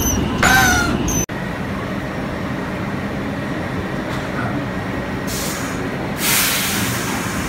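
Steady rumble of a subway train in the station, with a short high gliding cry in the first second and two bursts of hiss about five and six seconds in.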